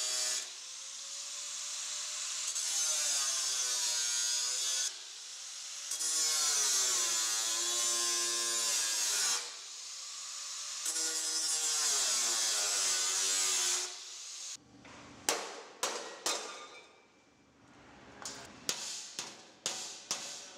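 Angle grinder with a cutting disc cutting through sheet metal in three passes, its whine dipping and recovering in pitch as the disc bites. About three-quarters of the way in the grinding stops and a run of sharp hammer blows on the sheet metal follows, bending the plate's edge into a flange, with a short pause partway through.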